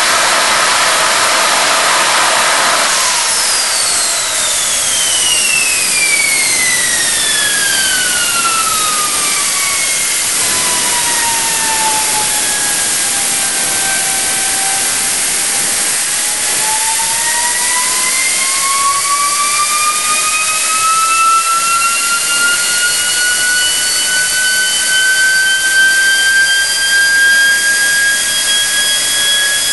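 Home-built turbojet made from a Garrett automotive turbocharger, running with a loud steady rush of exhaust. Its high whine falls steadily in pitch for about twelve seconds as the rotor spools down, then climbs again slowly as it spools back up.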